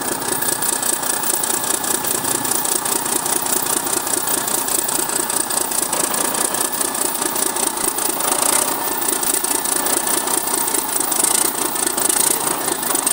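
Large turbocharged inline diesel engine running steadily at idle on a stand with its valve cover off, a fast even clatter from the engine.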